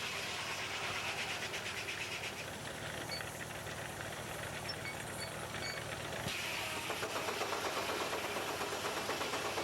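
Steam engine driving a sawmill, running with a rapid, even beat and a hiss of steam. About six seconds in the sound changes suddenly: a low steady hum drops away and a brighter hiss comes up.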